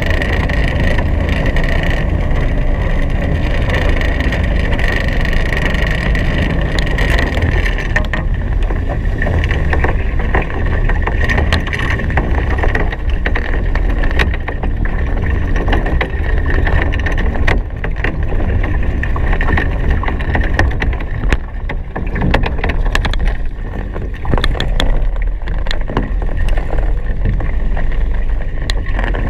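Hobie Cat 16 catamaran sailing fast: wind buffeting the microphone and water rushing past the hulls, with a steady high whistle and scattered sharp ticks.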